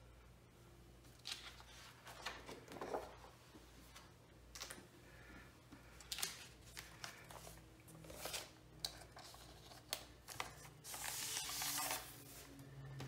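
Thin plastic inner sleeve rustling and crinkling in hands as a vinyl record is pulled from its jacket and then slid out of the sleeve: a string of short scrapes and crinkles, with a longer sliding rustle near the end as the disc comes free.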